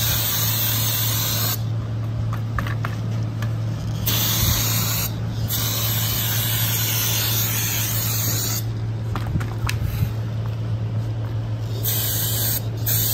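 Aerosol spray can hissing in bursts as cleaner is sprayed onto an oily metal oil pan. The spray stops for a couple of seconds about two seconds in and again for about three seconds near nine seconds in, with a steady low hum underneath.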